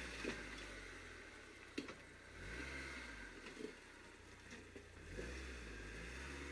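Off-road vehicle engine labouring at low revs as it crawls over a dirt hump, revving up twice, with a couple of sharp knocks early on.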